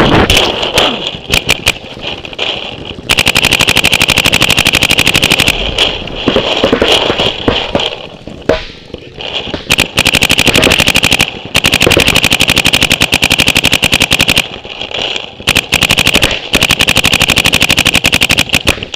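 Paintball marker firing in rapid strings of shots, several long bursts of a couple of seconds each with short pauses between them.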